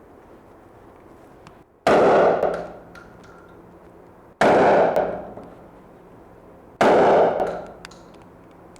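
Three gunshots at target practice, about two and a half seconds apart, each one sharp and trailing off in echo.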